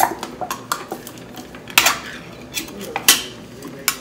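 Metal food cans handled on a counter and their pull-tab lids popped open and peeled off: a string of sharp metallic clicks and clanks, the loudest two at about two and three seconds in.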